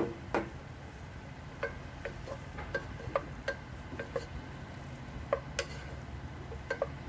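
Wooden spoon stirring chopped onion in oil in a nonstick pot, knocking against the pot in about twenty light, irregular clicks over a low, steady hum.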